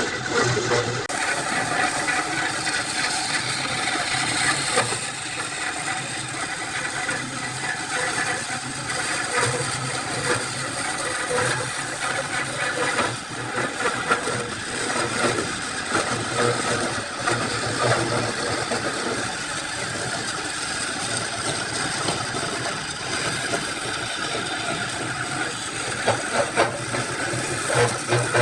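A motor-driven woodworking power tool running steadily.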